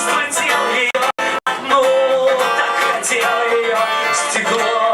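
A live song with acoustic guitar accompaniment. The sound cuts out twice, very briefly, a little after a second in.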